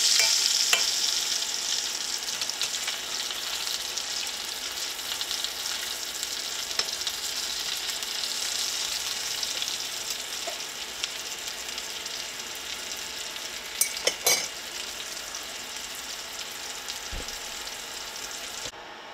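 Scallops sizzling in foaming butter in a stainless steel skillet. The sizzle slowly fades, with a few sharp clinks about two-thirds of the way through, and it cuts off just before the end.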